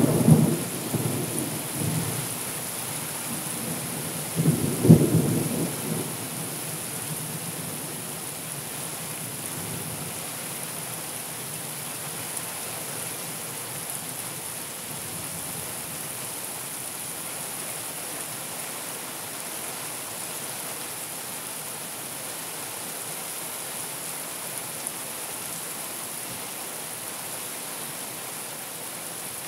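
Thunder rumbling twice, at the start and about five seconds in, over steady rain hiss that carries on alone for the rest of the time.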